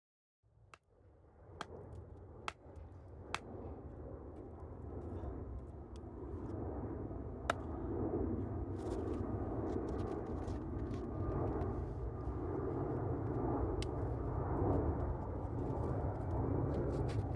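Jet aircraft engines rumbling overhead, growing louder over the first several seconds and then holding steady. A few sharp clicks sound in the first half.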